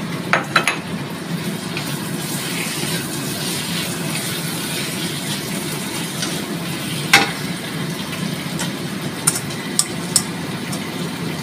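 Long beans stir-frying in a stainless steel wok: steady sizzling, with a spatula knocking and scraping against the pan now and then, the loudest knock about seven seconds in.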